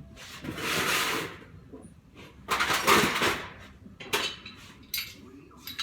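Metal hand tools clattering and clinking as they are rummaged through, in two long rattling bursts. Then come a few sharp separate clinks as a wrench is picked out.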